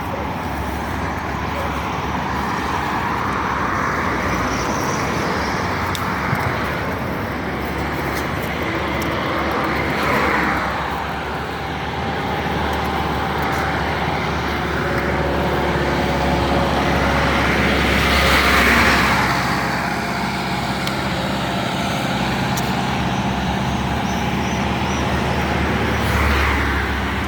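Road traffic: a steady rush of vehicles, with several passing close by one after another, the loudest about two-thirds of the way through.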